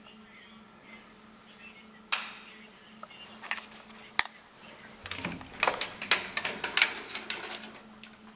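Scattered knocks and clicks from someone moving through an empty house with a handheld camera, over a steady low hum. A sharp knock comes about two seconds in, and the clicks grow busier in the second half.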